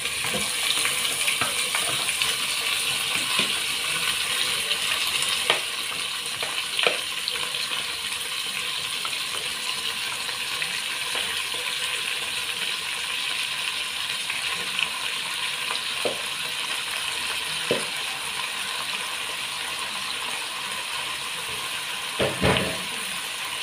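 Raw chicken and pork pieces sizzling in hot oil with sautéed onion and garlic: a steady frying hiss, with a few scattered clicks and a heavier knock near the end as pieces go into the pot.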